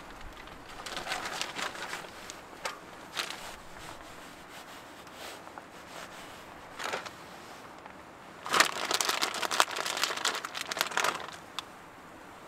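Plastic food packaging crinkling on and off as it is handled, with the loudest stretch of crinkling for a couple of seconds past the middle while a bag of shredded cheese is handled.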